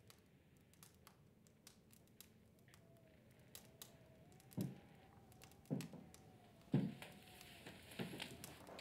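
Quiet rustling and small clicks of papers being leafed through, with three heavier thumps about a second apart midway. A faint high held tone wavers underneath, and a soft hiss rises near the end.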